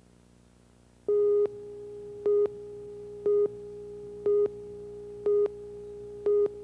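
Video countdown leader tone: a steady beep tone that starts about a second in and jumps to a louder beep once a second, six times.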